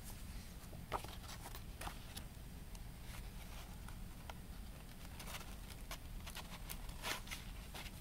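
Hands handling a CD's printed card jacket and black cardboard sleeve: scattered soft rustles and small clicks of card sliding and flexing, with a louder tap about a second in and another near the end, over a steady low hum.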